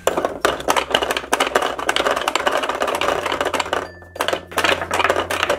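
Fast, dense plastic clicking and clattering from a pop-up pounding toy handled at its buttons and pegs, with a short pause about four seconds in.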